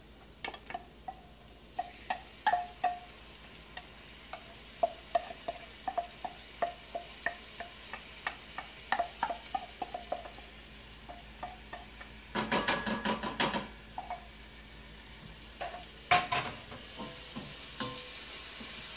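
A spoon scraping and tapping inside a small stainless steel bowl as a seasoning mix is emptied into a frying pan: many short metallic clinks that ring briefly, with a denser, louder stretch of scraping about two-thirds through and a sharp knock a little later. Onions sauté with a soft sizzle underneath, and near the end a wooden spoon stirs the pan.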